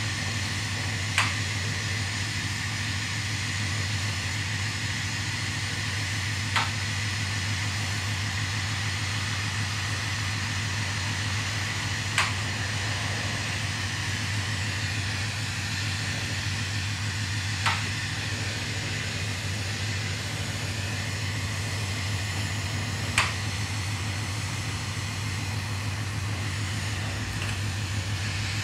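Glassblowing bench torch burning with a steady hiss over a constant low hum. A short, sharp click recurs about every five and a half seconds, five times.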